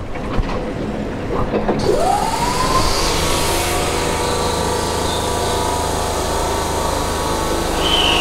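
Keihan electric train standing at an underground platform after its doors close, its machinery humming low. About two seconds in, a whine rises and then holds steady, and near the end a second, higher whine starts falling, all with the echo of the underground station.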